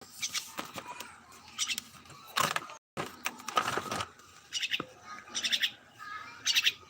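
Birds calling: a string of short, sharp calls repeated every second or so, over a background of outdoor noise.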